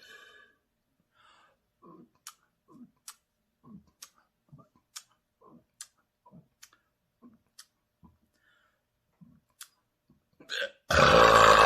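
A person's throat makes a run of soft, clicky gulping swallows, about two a second, building up a burp. About eleven seconds in, a loud, long burp comes out.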